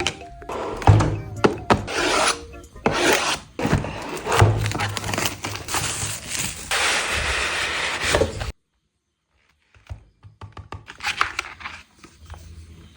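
Packaging being handled and opened: rubbing and scraping strokes in quick succession, cutting off abruptly about eight and a half seconds in, followed by lighter clicks and rustling near the end.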